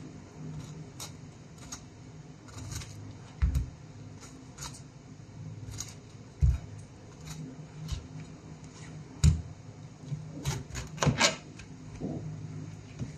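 Kitchen knife slicing the rind off a whole pineapple on a cutting board: irregular crunching cuts with occasional dull thuds of the blade on the board, and a quick run of cuts a little after ten seconds in. A steady low hum runs underneath.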